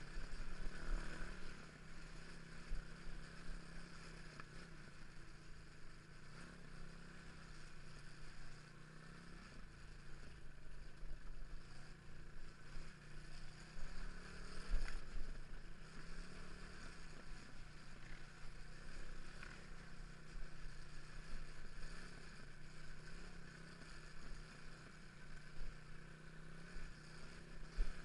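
Motorcycle engine running at a fairly steady speed while riding, its pitch drifting a little, with wind buffeting the microphone.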